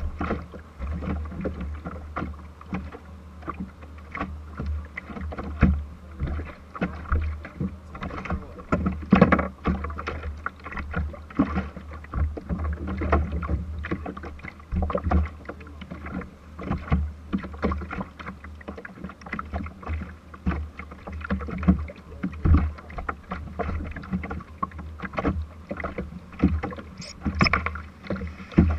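Irregular knocks and thumps of people moving about and handling gear on a small boat's deck, carried into the deck-mounted camera, over a steady low rumble of the hull on the water. A short high squeak comes near the end.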